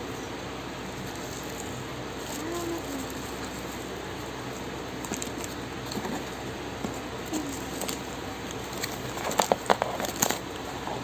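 Small handling clicks and taps, as of keycaps and packaging being handled, over a steady hiss. A quick run of sharper, louder clicks comes about nine seconds in.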